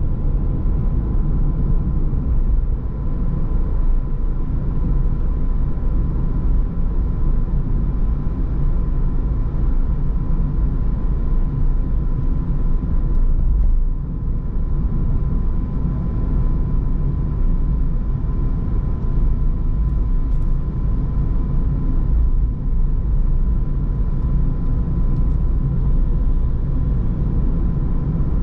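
Car driving on city roads: a steady low rumble of tyres and engine, with a faint steady high tone running through it.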